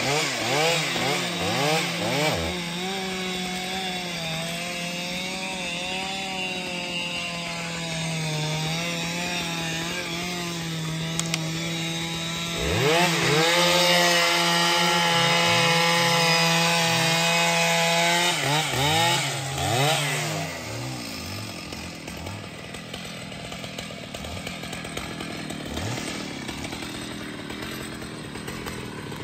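Stihl MS 881 large two-stroke chainsaw cutting through a thick log. It opens with a few quick throttle blips, then runs steady under load. The revs climb and hold high from about 13 s, drop away around 20 s, and it runs quieter near idle through the last third.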